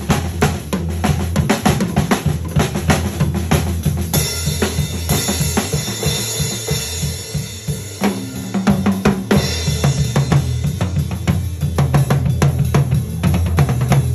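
Drum kit played hard and fast by two drummers sharing one kit: dense snare and tom strokes over the bass drum, with cymbals and hi-hat struck by the second player. Cymbal crashes come in suddenly about four seconds in, and the drumming thins briefly around eight seconds before building again.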